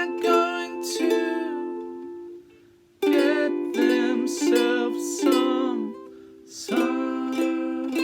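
Ukulele strummed in steady chords, about two strums a second, with a man's voice singing a simple song line over it. The strumming drops away briefly about two seconds in, then picks up again.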